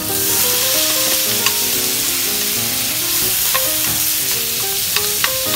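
Raw shrimp sizzling in butter in a hot frying pan, the sizzle jumping up at the start as they go in, then stirred with chopsticks, giving a few light clicks. Soft background music plays underneath.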